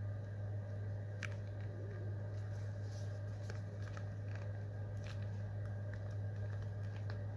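A steady low hum with a scattering of faint small clicks.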